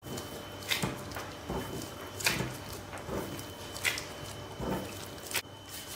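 Gloved hands pinching pieces off a log of soft yeast dough and setting them down on a wooden tabletop: short handling sounds about every second and a half, with soft knocks on the table between them.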